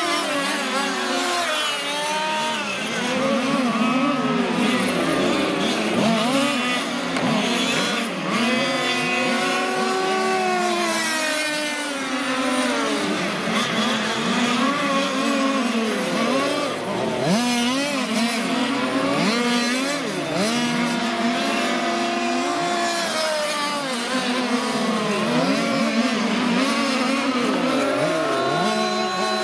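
Several 1/5-scale petrol radio-controlled race cars' small two-stroke engines buzzing in overlapping high-pitched tones. The pitch keeps rising and falling as the cars accelerate and back off around the circuit.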